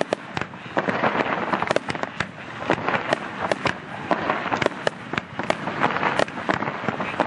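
Aerial fireworks display shells bursting in quick succession: many sharp bangs with a dense crackle between them.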